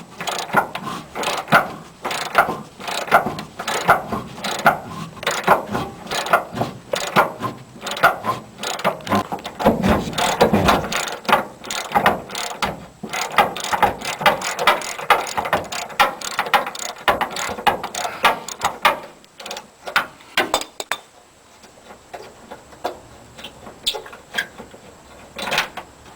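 Ratchet wrench clicking rapidly as the truck-bed bolts are backed out; after about 21 seconds the clicking thins to scattered single clicks.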